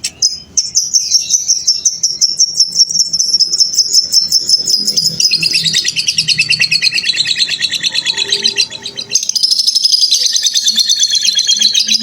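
Lovebird giving its long, continuous chattering song (ngekek): a fast, unbroken run of high, rapidly repeated notes. It breaks off briefly just before nine seconds in, then resumes.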